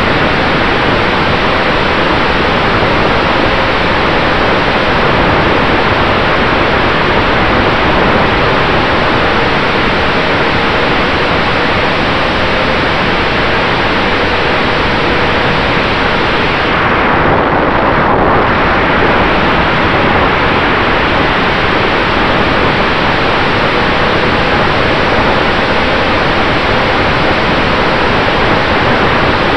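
Loud steady rush of propeller wash and wind over an onboard camera's microphone on an electric RC warbird in flight, with a faint steady tone underneath from the brushless motor and prop. The hiss briefly dulls about two thirds of the way through.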